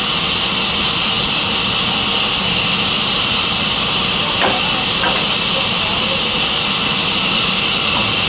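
Sawmill saw machine running: a steady loud hiss with a low hum underneath, and two faint knocks a little past the middle.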